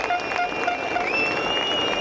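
Race-circuit crowd noise with rhythmic clapping and a string of short repeated toots, about three a second, that stop about a second in. A long, steady high-pitched tone then starts and holds.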